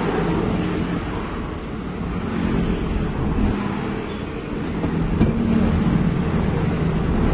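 Truck engine running steadily under way, heard from inside the cab, with a low hum and a constant rumble of road noise.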